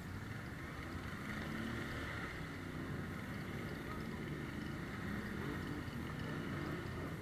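ATV engine running as it rides along a dirt trail: a steady low rumble with an engine note that shifts a little with the throttle.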